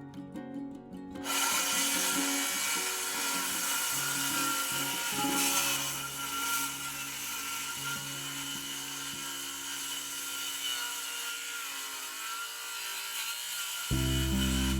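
A power saw cutting through wood in one long steady cut, with a steady whine. It starts about a second in and stops just before the end. Background music plays underneath.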